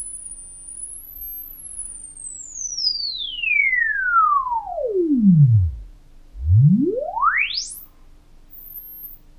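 Sine-wave test tone played through VETR PANL-1 flat-panel transducer speakers, swept by hand from a high whistle down to a deep bass tone over about six seconds, then quickly back up to a very high pitch. It is loudest in the bass near the bottom of the sweep, and a faint steady hum sits under it.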